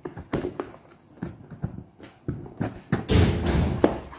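Hands handling a rigid cardboard gift box: light taps and knocks, then about three seconds in a loud scraping rustle as the box is opened, ending in a knock.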